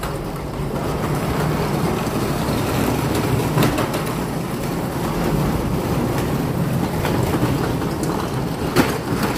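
Pressure washer running steadily, a motor hum under the hiss of the spray, with two sharp clicks: one a few seconds in and one near the end.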